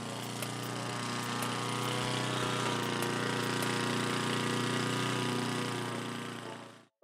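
The homemade RC lawn mower's 173cc single-cylinder gas engine running steadily, with a few sharp ticks at first; it grows a little louder over the first few seconds, then fades out near the end.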